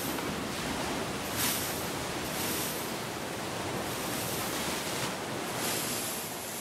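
Steady rushing wash of ocean surf, with a few brief louder swishes.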